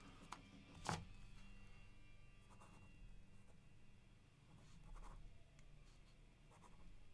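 Faint pen scratching on paper in short strokes, with a single sharp click about a second in.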